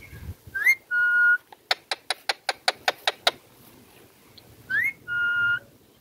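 Ringneck parrot calling: a rising whistle into a held note, a quick run of about ten sharp chirps, then the rising whistle and held note again.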